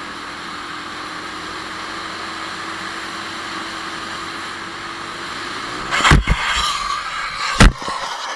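Motorcycle riding along with a steady rush of wind and road noise and a faint engine hum, then a motorcycle crash: a loud impact about six seconds in, rough scraping noise, and a second, louder impact about a second and a half later.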